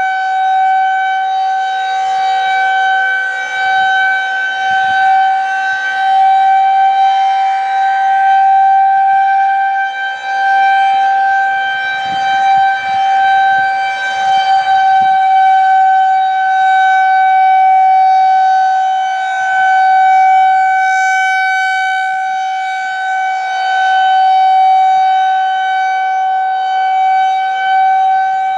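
Federal Signal 2001-130 rotating outdoor warning siren sounding its steady Alert tone: one held pitch that does not rise or fall, its loudness swelling and fading as the rotating horn sweeps past.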